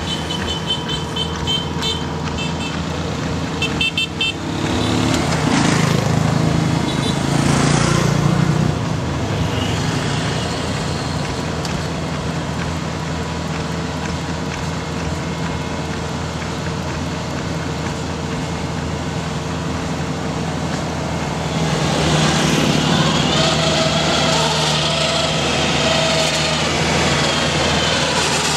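A large engine running steadily, swelling louder twice. Short runs of rapid high beeps sound near the start and again about four seconds in.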